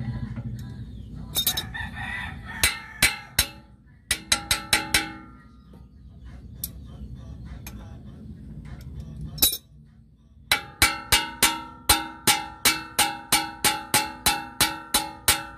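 Steel adjustable wrench clinking against a nut and the metal of a truck's drum-brake assembly, each strike ringing. A few scattered clinks come first, then from about ten seconds in a quick regular run of about three clinks a second.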